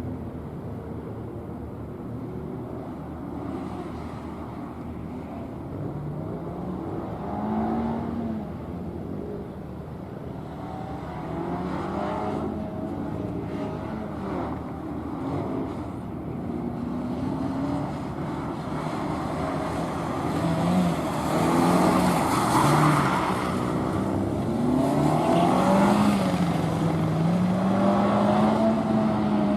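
A car's engine revving up and dropping back again and again as it runs a gymkhana course, accelerating and braking between turns. It is faint at first and gets louder in the second half as the car comes nearer.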